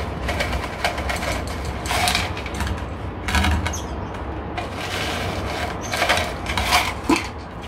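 Small stones poured from a plastic cup onto a potted succulent's soil as a top dressing, rattling and trickling in several short runs.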